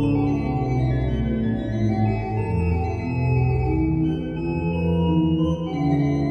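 Pipe organ music: sustained chords over low pedal notes, the notes shifting every second or so.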